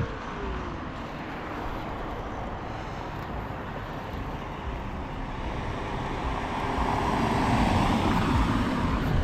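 Sur-Ron electric dirt bike riding, its drivetrain and tyres running under a steady rush of noise. The sound builds up about six seconds in.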